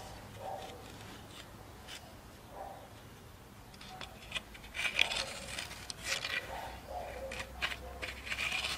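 Scraping of a wooden plank's end dragged over hard, gritty dirt ground as it is swung round to scribe a circle. Short scratches at first, becoming more continuous scraping from about halfway.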